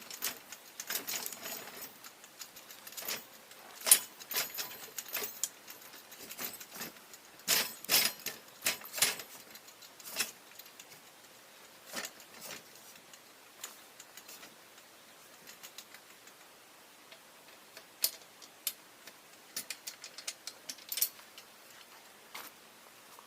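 Irregular metallic clinks, rattles and knocks of pontoon boat frame parts and clevis pins being handled and fitted together, the sharpest knock about four seconds in and a busy cluster around eight to nine seconds, sparser later.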